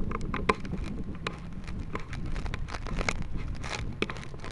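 Handling noise right at the onboard camera's microphone: irregular clicks, knocks and rubbing over a low rumble as the camera is packed and sealed into its housing in the rocket.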